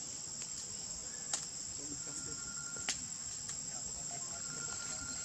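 Steady high-pitched insect drone from crickets or similar insects, with two sharp clicks about a second and a half apart.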